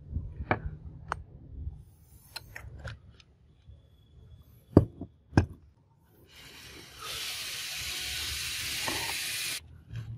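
Light metal clinks and two sharp knocks a little over half a second apart, as rusty steel pieces are handled and a rusty bar tap wrench is set into the jaws of a steel bench vise. Then a steady hiss of unclear source runs for about three seconds and cuts off suddenly.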